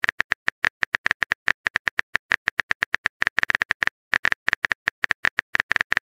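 A rapid, uneven run of short, identical high clicks, a few gaps breaking it up, like a text-typing sound effect.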